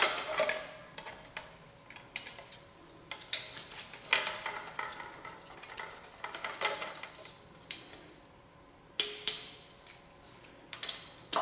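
Hand work on an aluminium engine cylinder head: irregular metal clinks, taps and knocks as a bracket is fitted and a ratchet wrench is set on its bolts, a few of the clinks ringing briefly.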